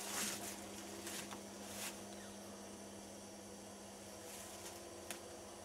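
Scattered footsteps rustling through dry leaves and weeds as a person walks slowly through brush, over a steady low hum.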